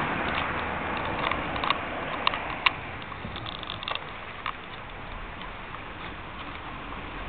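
Steady outdoor background hiss, like distant road traffic, fading over the first few seconds, with scattered sharp clicks and taps about one to three seconds in and again around four seconds in.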